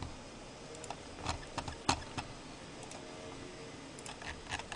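A few scattered, light clicks and taps on a computer keyboard and mouse, with faint room tone between them.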